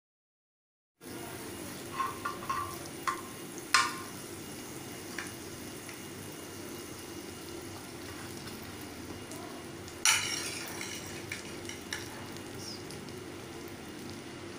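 Fat sizzling steadily on a hot flat iron tawa, starting about a second in. A few light clicks come a couple of seconds in, and a louder scrape of the metal spatula follows about ten seconds in, as the bread slices are slid into place.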